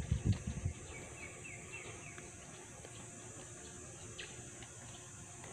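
A few dull thumps and handling noise in the first second as a tilapia thrashes in the gill net, then a small bird calls a quick run of about five falling chirps. A steady high hiss runs underneath.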